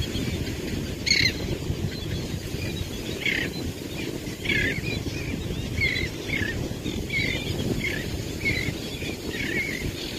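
Birds chirping, short high calls about one or two a second, over a steady low rumble of wind on the microphone.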